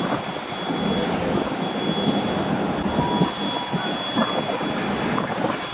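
Passenger train carriages rolling along the rails, with a thin high whine that comes and goes and a few short clicks.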